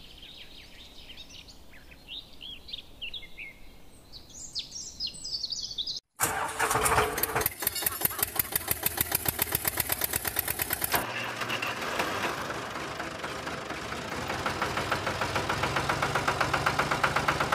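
Birds chirping over quiet field ambience for the first six seconds or so. Then, after a sudden cut, a loud tractor-style engine sound runs with a fast, even knocking pulse to the end, its tone changing about eleven seconds in.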